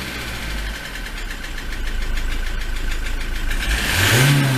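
Ford Transit MK7 2.4 diesel engine idling with a knock, then revved briefly about four seconds in, the pitch rising and falling back. The owner suspects the knock comes from a failing dual-mass flywheel.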